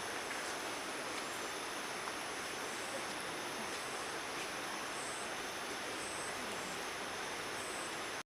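Steady, even outdoor hiss, with a few short faint high chirps now and then.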